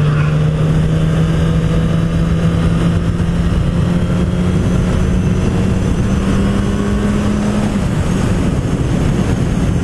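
Suzuki GSX-S1000's inline-four engine running under way, its note climbing slowly and then falling away about eight seconds in, with wind rush on the microphone.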